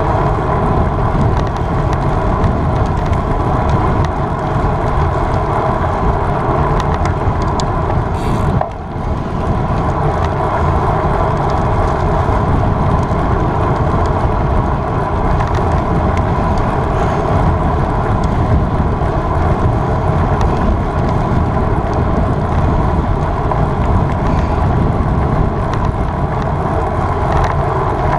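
Steady, loud rushing of wind over the microphone while riding a road bike at race speed, with a brief dip about eight and a half seconds in.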